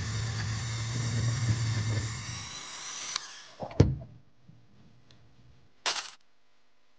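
Handheld rotary tool spinning a felt polishing bob with wax against a small DC motor's metal housing: a steady whirring hum that winds down and stops about three seconds in. A sharp knock follows, and a short whoosh comes near the end.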